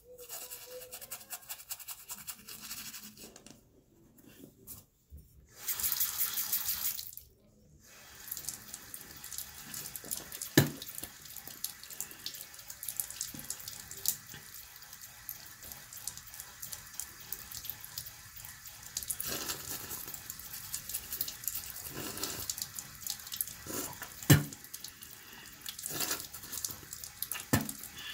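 A toothbrush scrubbing teeth for a few seconds, then a bathroom faucet running steadily into the sink while a toothbrush is rinsed under the stream. There is a short loud hiss about six seconds in, and a couple of sharp knocks later.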